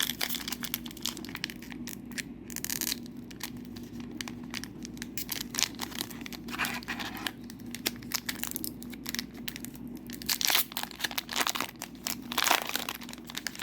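A Disney Lorcana booster pack's foil wrapper being torn open and crinkled by hand: a run of sharp crackles and rips, louder about ten and twelve seconds in.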